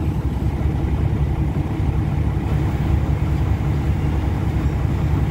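Diesel engine of an ordinary passenger train running with a steady low rumble as the train starts to pull out of the station.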